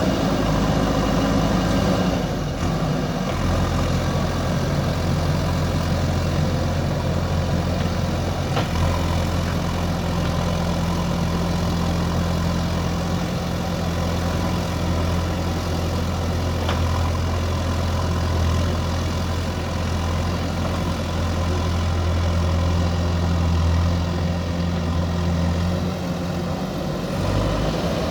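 JCB backhoe loader's diesel engine running at a steady speed. Its low note steps up slightly about three seconds in, with a couple of faint clicks over it.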